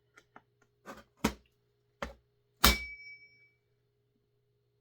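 Hammer blows on the clutch of a Husqvarna 350 chainsaw to knock it loose: a few light taps, then four sharp metal hits within about two seconds, the last and loudest ringing briefly.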